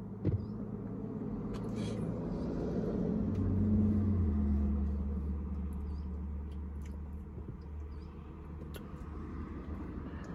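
Low engine rumble of a motor vehicle that swells to its loudest about four seconds in, its pitch stepping down there, then slowly fades, with a few faint clicks along the way.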